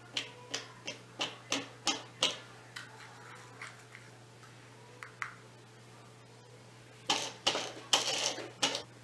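Small clear plastic cups clicking and tapping as they are handled on a table: a quick run of about eight light clicks, then a few scattered ones. Near the end, paper rustling.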